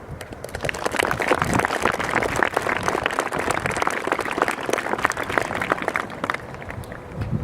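Audience applauding, many hands clapping. It starts about half a second in and dies away near the end.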